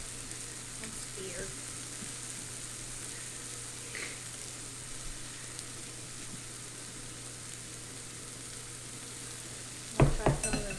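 Meat frying on an electric grill plate, a steady sizzle. About ten seconds in comes a sharp clack, the loudest sound.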